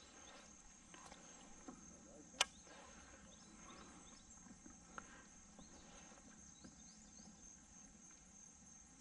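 Faint, steady high-pitched drone of insects chirring, with a few sharp clicks on top, the loudest about two and a half seconds in.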